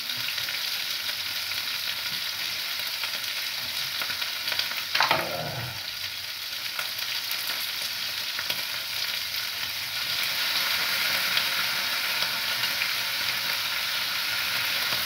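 Pieces of liver frying in a wide pan on a gas stove: a steady sizzle that grows louder about ten seconds in, as the pieces are stirred and turned. A short vocal sound comes about five seconds in.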